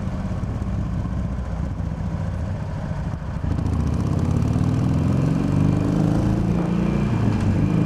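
Harley-Davidson Sportster's V-twin engine running at low speed, then louder from about three and a half seconds in as the motorcycle pulls away. Its pitch climbs, drops and climbs again through the gear changes.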